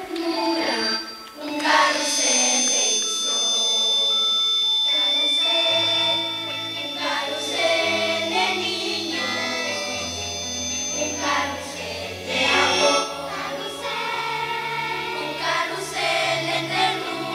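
Girls' choir singing with instrumental accompaniment; a bass line comes in about six seconds in.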